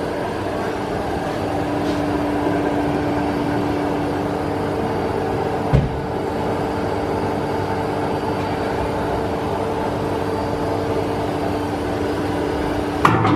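Handtmann VF100B vacuum filler running: a steady mechanical drone carrying a steady hum, with a single knock about six seconds in and a few clattering knocks near the end.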